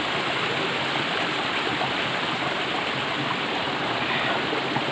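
Rocky mountain stream flowing steadily over stones.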